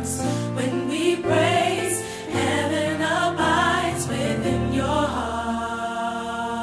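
Gospel song: singing with no words made out, over sustained keyboard chords.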